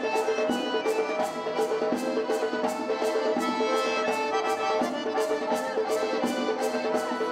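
Traditional Circassian dance music: an accordion melody over a sharp, steady percussion beat about three times a second.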